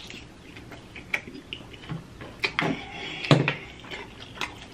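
Wet lip smacks and sucking from eating a spicy sauced chicken wing as meat is pulled off the bone, in scattered short clicks, with a few louder smacks in the second half.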